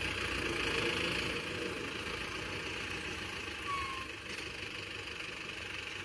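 Farm tractor engine running steadily while it pulls a plough through hard, cloddy ground, growing a little fainter after the first couple of seconds as it moves away.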